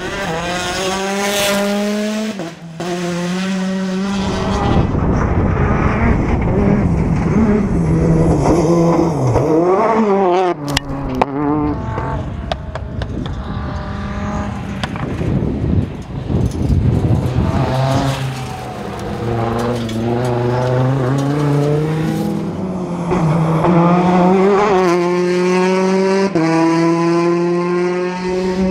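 Rally car engines at full throttle on a stage, the engine note climbing through the revs and dropping back again and again at gear changes and lifts.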